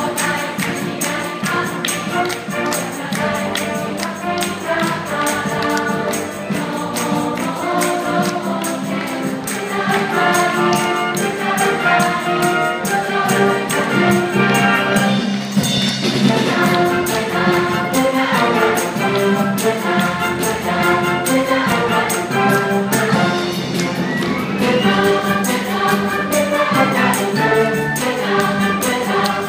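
A group choir singing a song with a band accompaniment and a steady, fast percussion beat.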